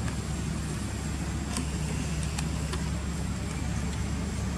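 Steady low rumble of outdoor background noise, with a thin, steady high-pitched whine above it and a few faint ticks.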